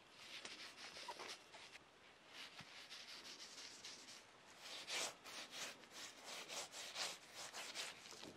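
Slabs of pork fat coated in coarse salt and spices being rubbed and handled: faint, irregular gritty scraping strokes, a little louder around the middle and near the end.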